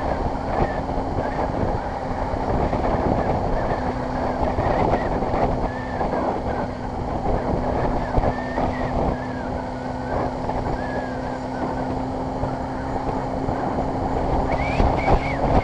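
Honda CBR600RR inline-four engine running at steady revs while the motorcycle cruises, under a dense rush of wind buffeting the microphone.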